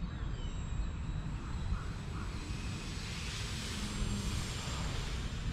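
Small RC airplane's motor and propeller passing low overhead: its buzz swells to a peak about four seconds in, then fades.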